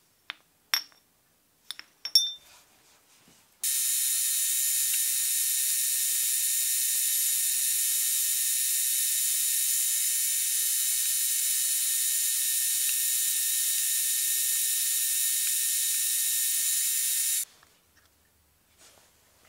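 A few sharp metal clinks, then a milling machine's end mill cutting aluminium angle: a steady, high-pitched, many-toned whine that starts abruptly a few seconds in and cuts off near the end.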